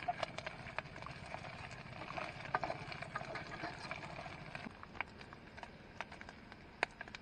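Meat frying in oil in a small camping pot: a steady crackle with scattered sharp pops and clicks.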